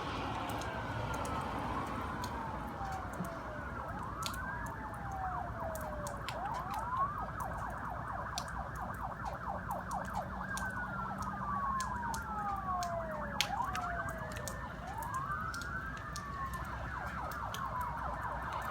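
Emergency vehicle sirens wailing, their pitch sweeping up and down every second or two, with a stretch of fast yelping warble in the middle and two sirens overlapping towards the end. Faint scattered ticks run underneath.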